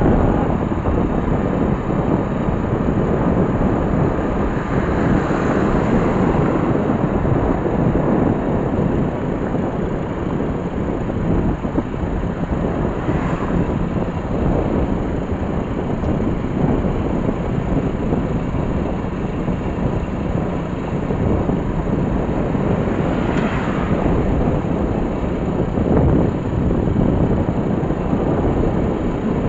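Steady rush of wind on the microphone mixed with engine and road noise from a moving two-wheeler.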